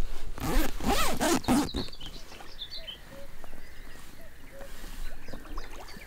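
A zip on a camouflage floating hide's fabric being pulled, a quick rasping zip lasting about a second and a half near the start, followed by faint splashing of water.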